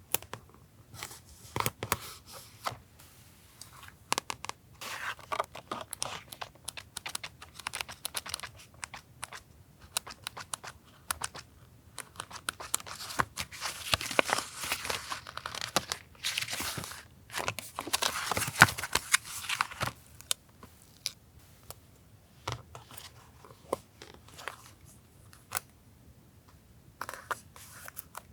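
Paper being handled for a collage journal page: rustling, crinkling and tearing with many small taps and clicks, busiest in the middle.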